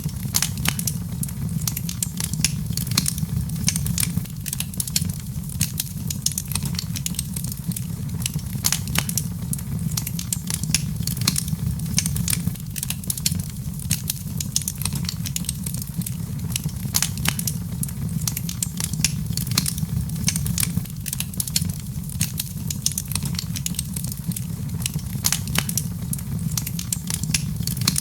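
Wood fire crackling in a fireplace: a dense, irregular stream of small pops and snaps over a steady low rumble.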